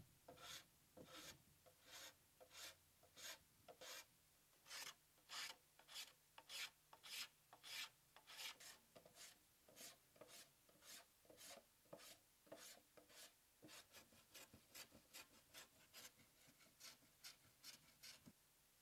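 Faint, rhythmic rasping strokes of a hand plane and a hand block shaving and smoothing wood, about two strokes a second, coming a little quicker near the end.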